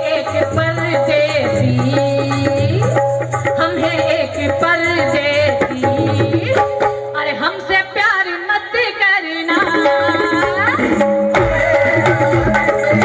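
Live ghazal music: a woman singing ornamented, sliding phrases over tabla and a sustained keyboard accompaniment.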